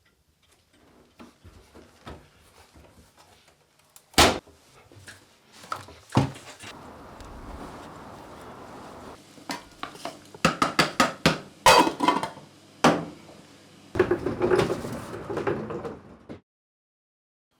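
Dishes and cutlery clattering and clinking in a series of sharp knocks, the household noise of kitchen work, with a busy run of clatters about two-thirds of the way through before it stops abruptly.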